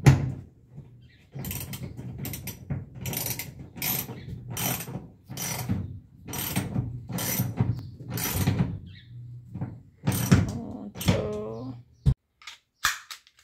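Ratchet wrench clicking in steady back-and-forth strokes, about one and a half a second, as a seat-belt anchor bolt is tightened into a Volkswagen Kombi's steel floor; a few last, separate strokes and clicks near the end.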